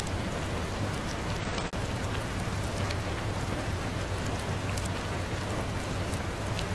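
Steady rain, an even hiss dotted with scattered sharp ticks, with a brief dip in the sound about one and a half seconds in.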